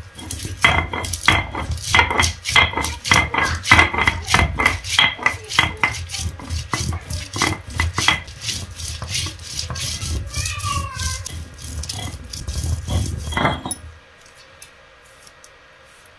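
Garlic, cumin and black peppercorns being crushed and ground on a grooved stone grinding slab (sil) with a stone roller (batta): stone knocking and scraping on stone at about three or four strokes a second. The grinding stops about fourteen seconds in.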